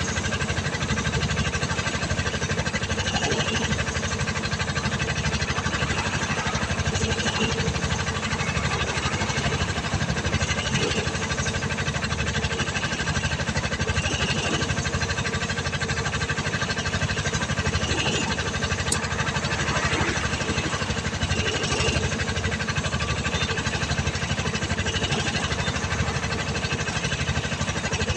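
An engine running steadily, a constant rapid throb with a few steady whining tones over it.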